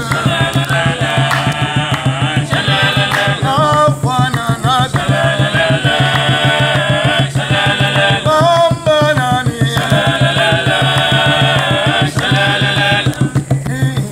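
Music: voices singing, chant-like, over fast, steady drumming.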